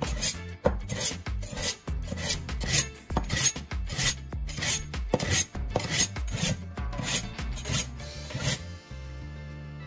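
Steel kitchen knife blade drawn again and again through the V between pairs of triangular metal files set in a wooden block, a rasping scrape of metal on file about twice a second, with soft background music. The strokes stop near the end, leaving only the music.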